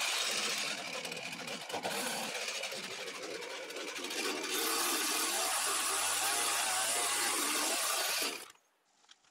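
Handheld power drill working into a log joint of a post-and-beam frame, likely driving the large screw that fastens the joint. A steady, gritty grinding that stops suddenly near the end.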